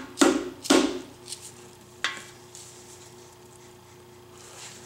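The back of a rubber hammer's handle tapping a diesel piston down through a band-type ring compressor into the cylinder bore: a few sharp knocks in the first two seconds, then it stops. The piston is hanging up, with a ring sticking out below the compressor.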